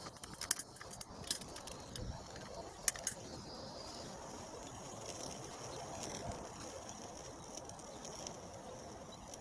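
Esbit coffee maker heating over a burning hexamine fuel tablet: a steady faint hiss, with a few sharp metallic ticks and clicks in the first three seconds.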